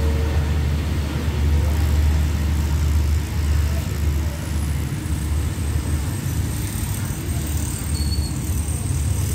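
Passenger train pulling away from the platform: a steady low rumble that eases slightly after about three seconds as the last carriage moves off down the track.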